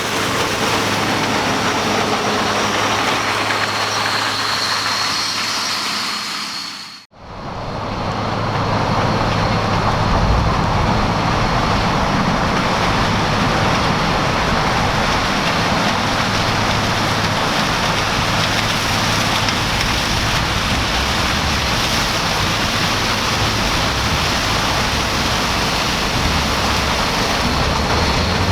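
Heavy farm harvesting machinery running steadily with a dense mechanical noise. The sound drops out abruptly for an instant about seven seconds in, then carries on unchanged.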